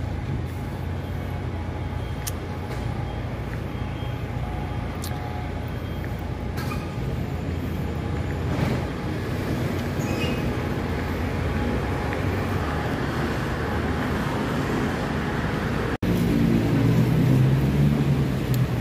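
Steady road-vehicle and traffic noise, a continuous rumble with a few faint clicks. It breaks off for an instant about 16 s in and comes back louder and lower.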